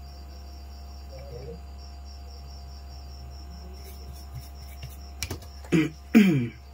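Quiet workbench background: a steady low hum and a faint, evenly pulsing high chirp, with a sharp click about five seconds in and a short burst of voice near the end.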